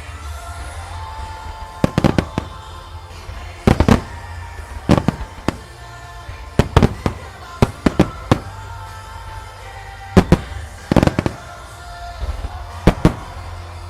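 Aerial fireworks shells bursting in quick clusters of sharp bangs, a volley every second or two, over music.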